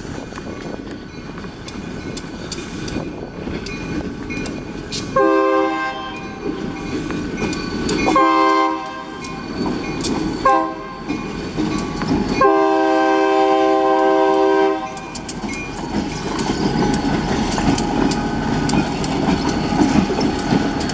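Diesel freight locomotive, an SD40, sounding its multi-chime air horn in the grade-crossing pattern of long, long, short, long, over the rumble and rail clatter of the approaching train. The last blast is held about two seconds.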